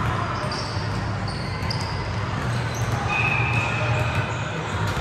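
Basketballs bouncing on a gym floor, with short high sneaker squeaks in the first two seconds and again a little past three seconds, over a steady low hum.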